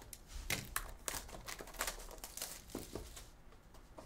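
Plastic wrap and cardboard of a sealed Topps Star Wars Signature Series card box being torn and crinkled by hand as the box is opened: a quick run of crackles and snaps that thins out near the end.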